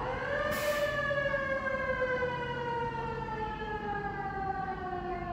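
Fire truck siren winding up to a peak about half a second in, then slowly winding down in pitch. There is a short hiss near the start and a low engine rumble underneath.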